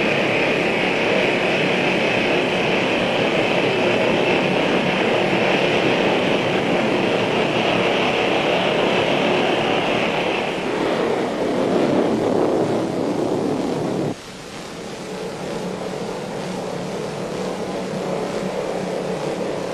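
Jet engines of a Lockheed Blackbird reconnaissance aircraft running: a steady high whine over a loud rushing roar. About 14 seconds in the sound drops suddenly to a quieter, lower jet rumble.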